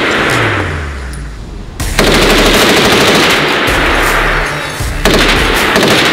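Rapid handgun shots fired in quick succession, echoing in an indoor range, with background music underneath.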